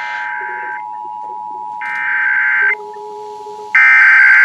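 Emergency Alert System digital data bursts: three warbling bursts, each just under a second long and about a second apart, the last the loudest. Under them runs the steady two-tone EAS attention signal.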